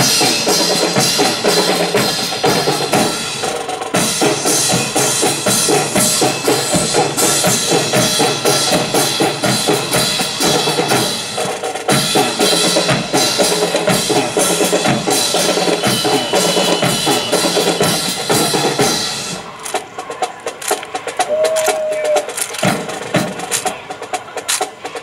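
Marching band with brass and drums playing a march with a steady drum beat. About nineteen seconds in, the full band drops away, leaving quieter sharp taps and a brief held note.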